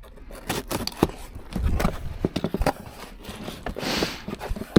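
A cardboard parts box being opened and handled: an irregular run of knocks, taps and scrapes on the cardboard, with a short tearing rustle of packaging a little before the end.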